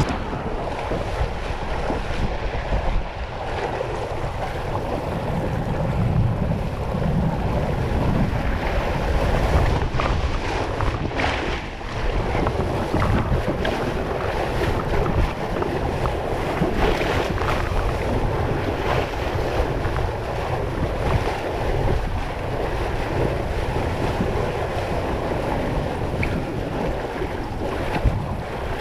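Water rushing and splashing down a water-slide channel as inner tubes ride through it, with steady wind noise on the microphone.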